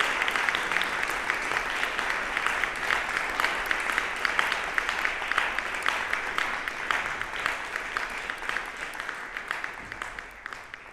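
Audience applauding, a dense patter of many hands clapping, slowly dying down toward the end.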